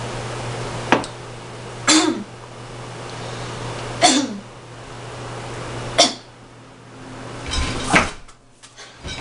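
A woman coughing and choking in sharp fits, about one every two seconds, some ending in a short falling voiced sound: she is acting out being poisoned by a drink. A light click comes about a second in.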